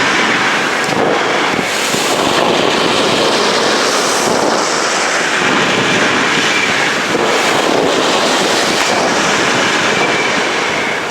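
Dense, unbroken barrage of firecrackers and fireworks. The countless reports run together into one steady, loud din, with no single bang standing out.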